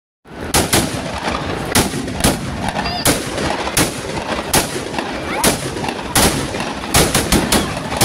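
Firecrackers bursting in a fire: sharp, irregular bangs, about one or two a second, over continuous crackling.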